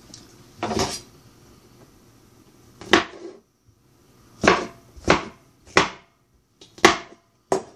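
A series of about seven separate knocks and clunks of objects being handled in a small kitchen, each short and sharp with a brief ring.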